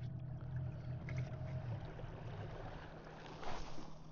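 Kayak's electric trolling motor humming steadily as the boat moves across the water, with water rushing past the hull. A brief louder rush of noise rises and fades about three and a half seconds in.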